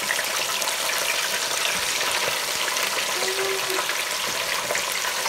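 Chicken drumsticks deep-frying in hot oil in an electric deep fryer: a steady sizzle with fine, constant crackling.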